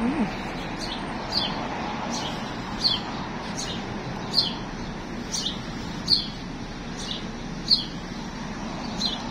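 A songbird repeating a short, high, downward-slurred chirp about every three quarters of a second, over a steady background hiss.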